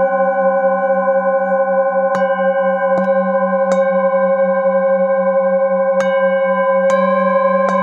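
A set of metal singing bowls struck one after another with a mallet, six strikes in all, over a sustained layered ringing whose low hum wavers slowly.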